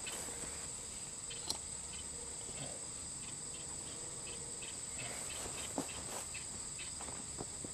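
Steady, high-pitched chorus of crickets and other insects, with a few faint clicks.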